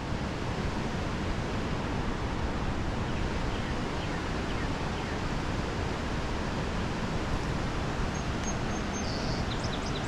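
Steady rush of creek water spilling over a dam, with a few faint high chirps near the end.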